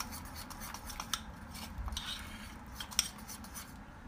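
Metal spoon stirring batter in a ceramic bowl, scraping and clicking against the bowl's sides with irregular taps, a few of them sharper.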